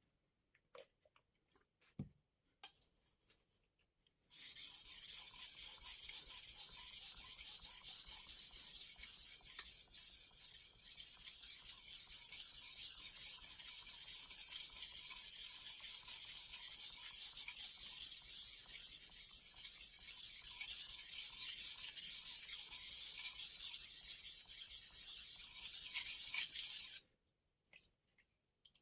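A kiritsuke knife's steel blade scraping continuously across a Taidea 3000-grit whetstone during sharpening. The scraping starts after a few light clicks about four seconds in, and stops suddenly near the end.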